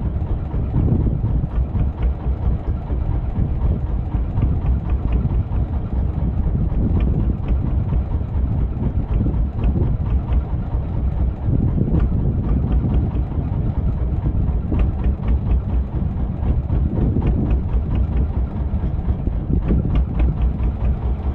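Fishing boat's engine idling steadily, a low rumble.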